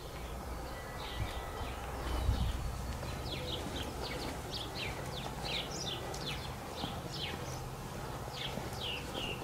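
Small birds chirping over and over, many short chirps that drop in pitch, over a steady low background rumble.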